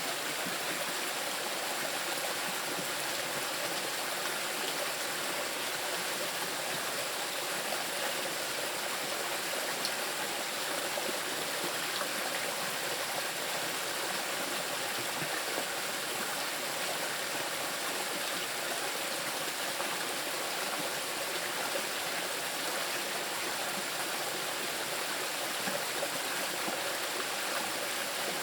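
Small river rushing steadily over moss-covered rocks.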